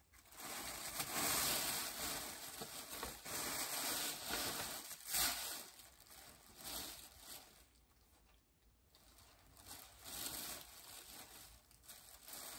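Rustling of a plush jacket's fabric as it is handled and turned over, coming in uneven spells with one sharper brush about five seconds in.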